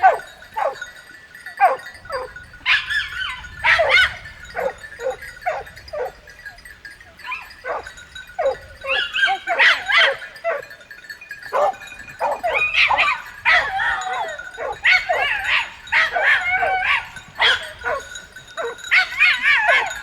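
A pack of hunting dogs barking, yelping and baying while chasing a wild boar. The calls are scattered at first and come in quick, overlapping volleys through the second half.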